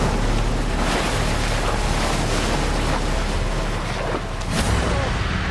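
Heavy surf crashing and churning, a continuous rush of water, with a sharper wave surge about four and a half seconds in.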